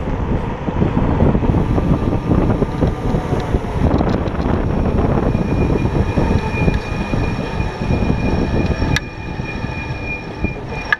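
Kaabo Wolf King GT electric scooter riding on the street: dense wind buffeting and tyre rumble on the low-mounted action camera's microphone. A steady high whine joins about halfway through, and the rumble eases somewhat near the end after a single click.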